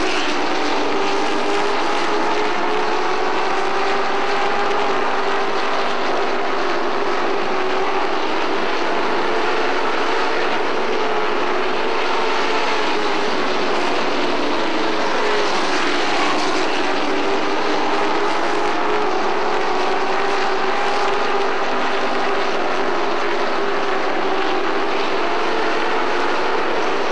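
A pack of pro race trucks with Chevrolet crate V8 engines running at race speed around a short asphalt oval. It makes a steady, loud engine drone whose pitch rises and falls as the trucks come round and pass.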